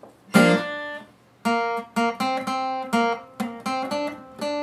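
Acoustic guitar: one strummed chord shortly after the start, then a pause and a run of single picked notes played as a short melody.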